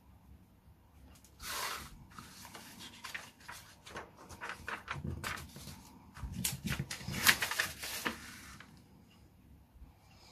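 Paper instruction booklet being handled and its pages turned and pressed flat: rustling swishes and crinkles, loudest about six to eight seconds in, then dying away.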